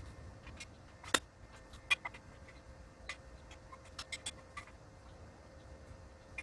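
Scattered sharp clicks and light taps, the loudest about a second in and again about two seconds in, with a quick cluster around the middle, over a faint steady hum.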